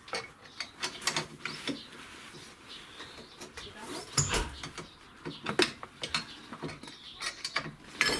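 Irregular light clicks and knocks, with one heavier thump about four seconds in.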